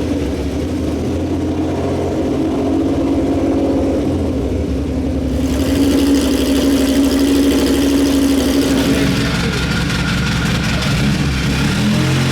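Racing car engine running hard on the circuit, its steady note turning louder and brighter about five and a half seconds in as the car comes closer.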